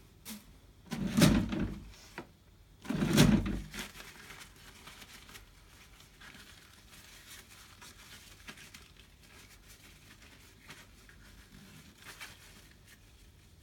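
Paper tissue rustling and crinkling faintly as it rubs a small plastic nebulizer part dry. Two loud bumps come about a second and three seconds in.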